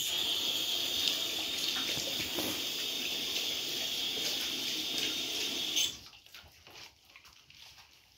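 Water running in a steady stream, starting suddenly and cutting off about six seconds in.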